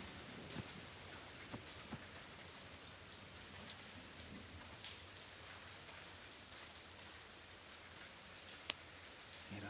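Steady rain falling, a faint even patter with scattered drips, and one sharp tick near the end.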